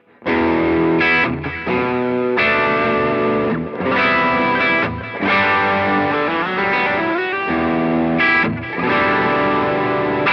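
Electric guitar playing chord phrases with short breaks, lightly overdriven by the Morning Glory side of a JHS Double Barrel V4 pedal, through an AMT Pangaea CP100 amp simulation based on a Bluesbreaker with a Celestion cabinet impulse response, recorded direct with no amplifier.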